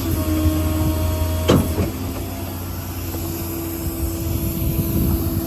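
Ford F550's 6.7-litre diesel running under PTO load while its hydraulics work the service body's outriggers, a steady machine hum. A sharp clunk comes about one and a half seconds in, and the hum's pitch shifts just after, as the hydraulic load changes.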